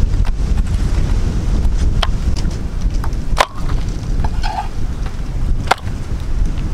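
Wind buffeting the microphone in a steady low rumble, with three sharp clicks a second or two apart.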